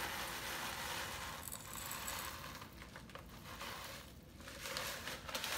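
Small aquarium gravel pouring from a plastic bag onto soil in a terracotta pot, a rattling, hissing trickle with the bag crinkling. It runs dense for the first couple of seconds, then thins to scattered clicks of stones.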